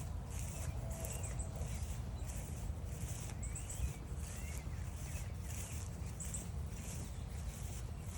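Songbirds chirping and whistling, with short rising and falling notes. A high hissing pulse repeats a little more than once a second, over a steady low rumble.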